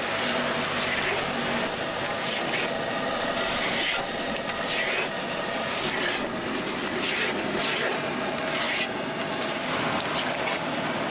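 Metal spatula scraping and tossing rice in a wok, several short strokes about a second apart, over a steady rushing noise.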